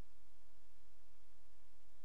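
A steady low hum with several faint steady tones above it, unchanging, and no other sound.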